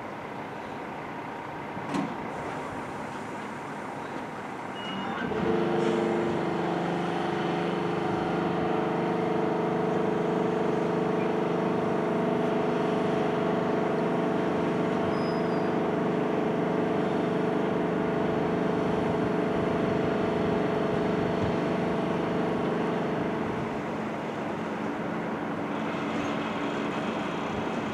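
Locomotive running: a rumble with a sharp click about two seconds in, then a louder steady hum of several held tones that starts about five seconds in and eases off near the end.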